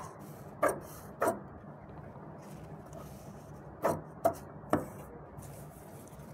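Large tailor's scissors snipping through stiff buckram interfacing, five short crisp snips: two in the first second and a half, then three close together about four seconds in.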